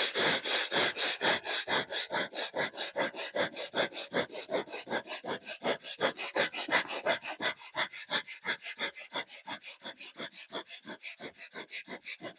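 Rapid, forceful breathing in and out through one nostril, the other held closed, in a fast bellows-style pranayama. The breath strokes come about three a second and grow softer in the second half.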